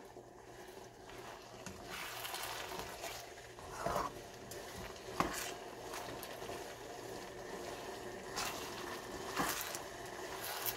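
Stir-fry sauce thickening in a nonstick wok, a steady sizzle and bubble, while a silicone spoon stirs through it and knocks against the pan a few times.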